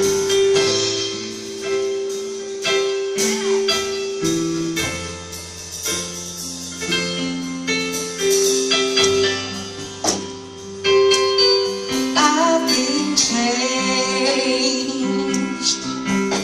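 Gospel music: a church choir singing over keyboard chords with held, sustained notes.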